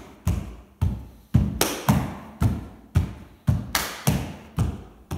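Gumboot dance body percussion done barefoot: bare-foot stomps on a wooden floor mixed with hand slaps on the body. The sharp strikes fall at a steady beat of about two a second, with a few quick doubles.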